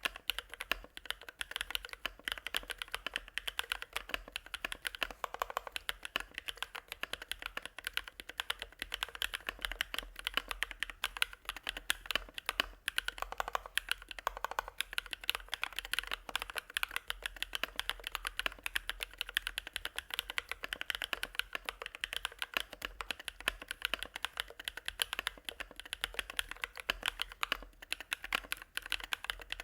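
Continuous fast typing on a mechanical keyboard with hand-lubricated Bsun Sunset Yellow linear switches, giving a rapid, mid-to-low-pitched clacking of keystrokes.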